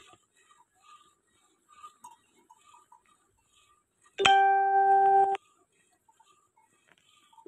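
Faint sounds of a cow being milked by hand into a steel bucket. About four seconds in, a loud steady single-pitched tone, like a horn or electronic beep, sounds for about a second and cuts off abruptly.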